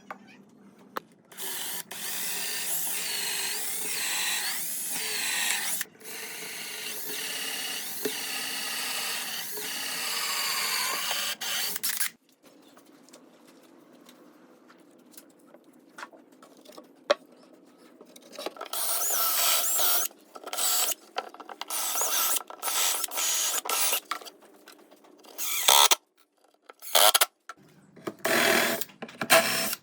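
A power tool running, first in a long stretch of about ten seconds with a wavering pitch, then after a quiet pause in many short on-off bursts.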